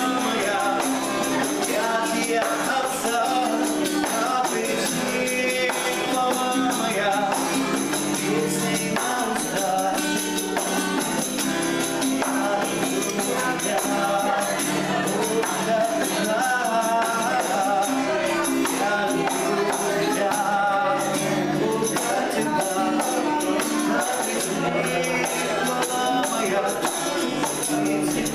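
A song with a tambourine jingling throughout, played at a steady level.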